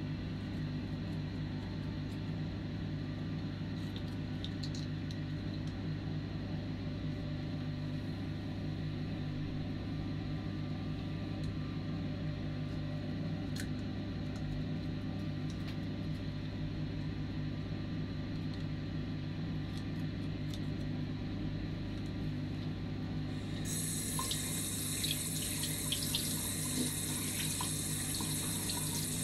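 A steady low hum runs under everything. About 23 seconds in, a bathroom tap is turned on and water runs into the sink with a steady hiss and a few small splashes.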